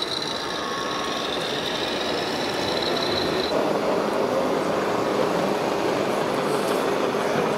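Radio-controlled scale model trucks driving, giving a steady engine-like running noise over the background noise of a busy hall. A high, thin whine stops about halfway through.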